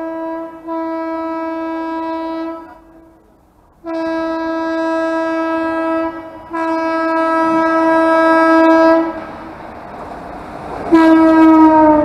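WAP-7 electric locomotive's horn sounding a string of long single-tone blasts, each about two seconds and each louder than the last, as the locomotive approaches. A rising rumble of the passing train fills the gap between the last two blasts. The final blast starts to slide down in pitch as the locomotive passes.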